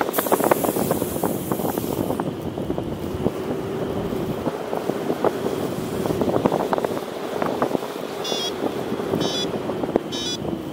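Wind rushing and buffeting over the microphone in flight on a paraglider. From about eight seconds in, a variometer gives short high beeps about once a second, signalling a climb.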